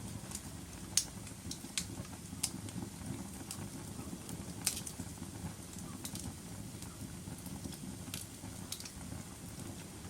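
Wood fire burning in a fireplace: a steady low rumble of flames with sharp crackles and pops of the burning logs, about one a second, the loudest about a second in.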